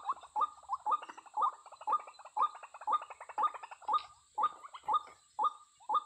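White-breasted waterhen calls: a long run of short, harsh, upward-hooked notes at about two a second, spacing out slightly toward the end.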